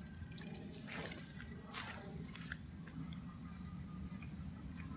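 Insects trilling: a steady, high, continuous tone, with a few faint ticks about a second and two seconds in.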